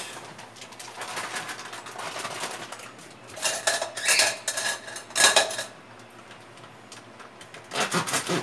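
Kitchen utensils clinking and rattling as they are handled in a plastic utensil holder at the sink, in several short bursts of clatter.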